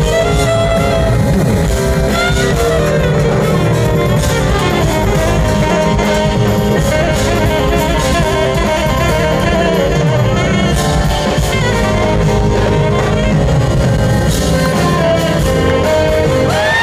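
Tenor saxophone playing an improvised solo over a live jazz band with drums and percussion.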